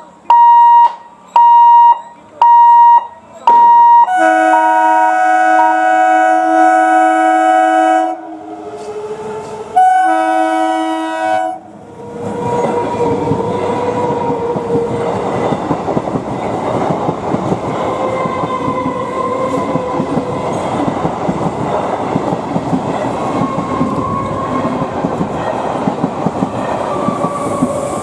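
Electronic warning beeps repeat about every two-thirds of a second, then an electric multiple unit (EMU) local train's multi-tone horn sounds a long blast and a shorter second one. The train then runs past with loud, steady wheel-on-rail rushing and a faint steady hum.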